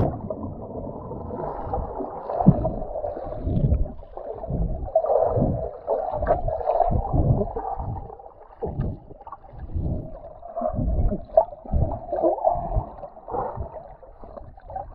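Muffled river water gurgling and sloshing, heard with the microphone under water, with irregular low knocks and thumps throughout.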